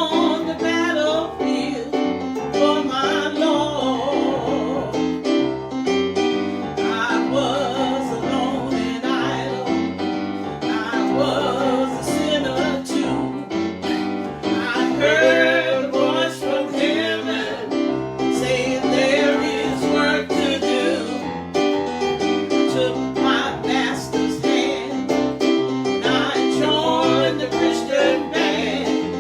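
Gospel praise song: singing over piano or keyboard accompaniment, steady throughout.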